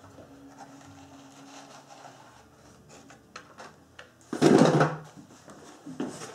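Blister-carded die-cast toy cars being handled: faint clicks and rustling, with one louder burst of packaging noise about four and a half seconds in.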